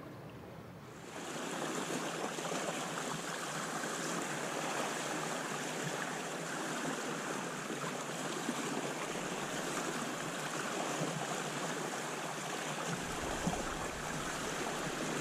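Water rushing and splashing steadily along the hull of a sailing ketch moving downwind under headsail at about three and a half knots. It starts about a second in, and a deeper rumble joins near the end.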